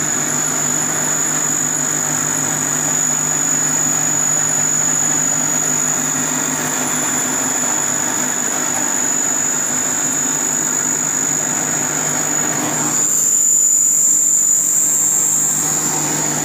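Electric cashew-paste grinding machine running steadily under load as ground cashew paste pours out: a continuous motor hum with a high-pitched whine over it. About thirteen seconds in, the grinding noise in the middle range drops away while the whine carries on.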